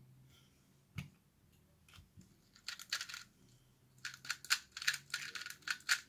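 A 2x2 speedcube being turned rapidly by hand: quick runs of sharp plastic clicks from about two and a half seconds in, densest near the end. A single knock about a second in.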